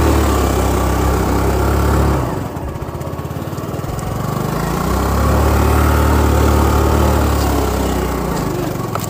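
Scooter's small engine running hard under throttle, easing off about two seconds in to a lower, uneven chug, picking up again about five seconds in and holding, then easing off once more near the end.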